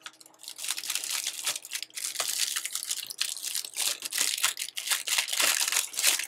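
Packaging crinkling and rustling in irregular crackles as a new purse is unwrapped by hand.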